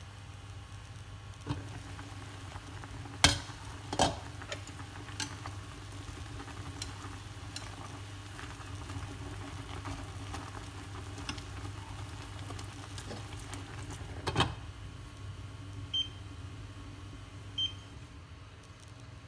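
A pot of taro stems boiling on an electric hob over a steady low hum. The glass lid clanks against the pot a few seconds in, chopsticks knock lightly on the pot while stirring, and the lid clanks back on later. Two short electronic beeps come near the end.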